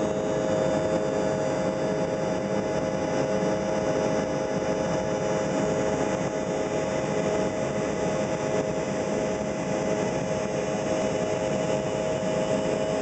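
Airliner engines and airflow heard from inside the passenger cabin during the climb after takeoff. It is a steady rushing noise with a constant whine over it.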